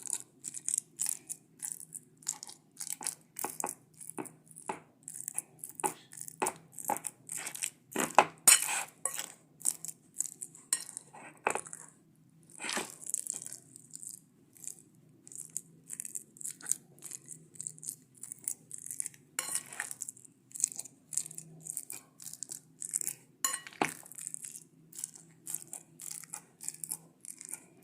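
Metal fork mashing steamed dried figs and garlic in a dish: many quick, irregular clicks and scrapes of the fork against the dish.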